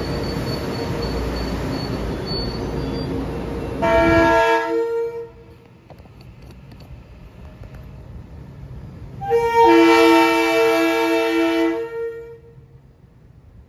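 Rolling noise of a passenger train pulling out along the platform. Then a train's chord horn sounds twice: a short blast about four seconds in and a longer blast of about three seconds starting about nine and a half seconds in.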